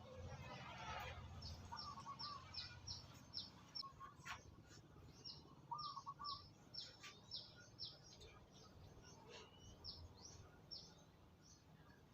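Small birds chirping: runs of short, high, falling chirps, about three a second, with a few lower warbled notes between them. A few sharp clicks are heard along with the chirps.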